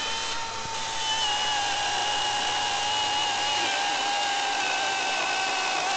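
Milwaukee 14-inch battery-powered top-handle chainsaw cutting through a log, its electric motor and chain giving a steady high whine with a rasp of chips, the pitch dropping a little about a second in as the chain bites.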